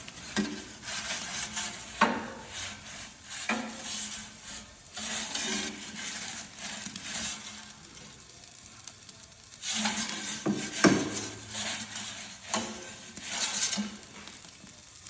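Metal clinking and scraping of a pizza peel and utensils at an Ooni pizza oven, with a few sharp knocks, the loudest about two seconds in and near eleven seconds.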